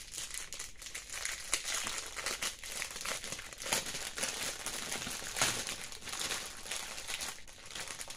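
Clear plastic bags of diamond painting drills crinkling as they are handled and turned over, with sharper crackles now and then.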